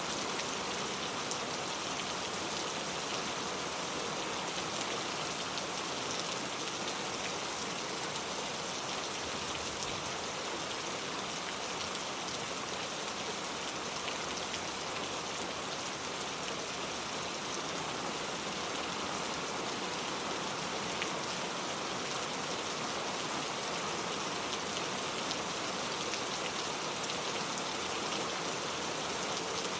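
Steady rain falling, a constant hiss of drops with scattered sharper individual drop ticks.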